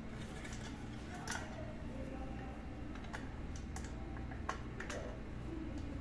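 A few scattered light clicks and taps of parts being handled on a pressure cooker as its broken handle is taken off.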